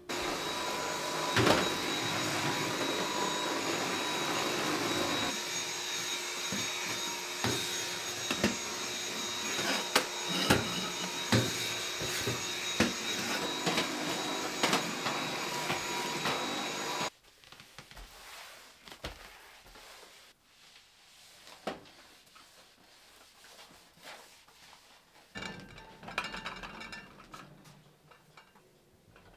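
Vacuum cleaner running with a steady whine and scattered clicks, switched off sharply about two-thirds of the way in. Light knocks and clatter follow.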